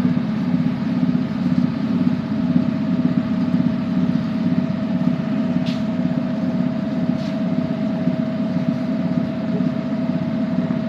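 Oil spinner (centrifugal oil drainer) running steadily: an electric motor and spinning basket give a constant low rumble with a steady whine above it, and two faint ticks in the middle.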